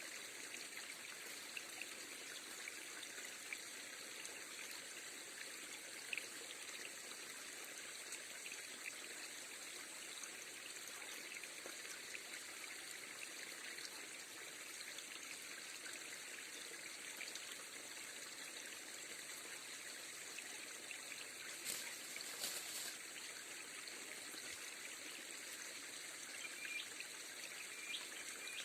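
River water flowing and trickling steadily, with a few brief clicks, a short louder patch about 22 seconds in.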